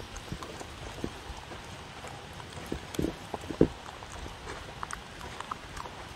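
Dog eating from a wooden bowl close up: irregular wet clicks of chewing and licking and hollow knocks against the wooden bowl, the two loudest knocks about three and three and a half seconds in.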